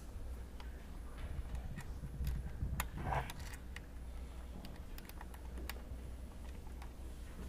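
Small clicks and rustling of hands twisting stripped speaker-wire ends and fitting them into an amplifier's screw terminals, with a louder scrape about three seconds in, over a low steady hum.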